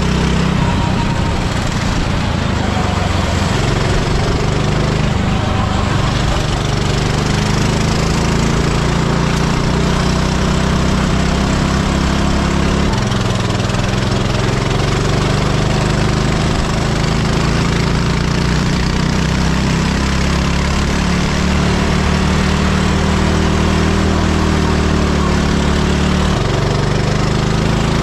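Go-kart engine running hard, heard from on board the moving kart, its pitch rising and falling as it accelerates and lifts off, with wind and road noise underneath. The engine note jumps abruptly twice, about halfway through and near the end.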